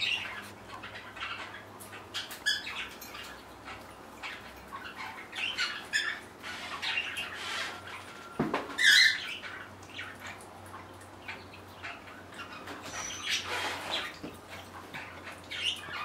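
Mixed indoor flock of pet birds (budgies, canaries, cockatiels and other small parrots) chirping and squawking in short, scattered calls, with one louder call about nine seconds in.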